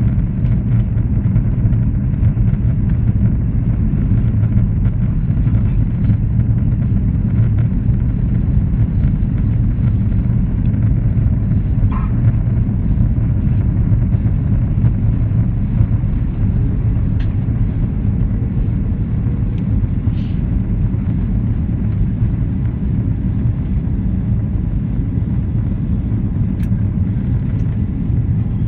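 Airliner cabin noise during descent: the steady low rumble of the jet engines and rushing airflow, heard from a window seat.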